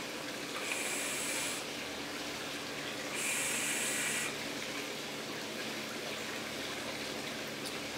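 Two draws on an e-cigarette with a dripping atomizer: air hisses through the atomizer as the coil fires, each draw about a second long, the second starting about three seconds in.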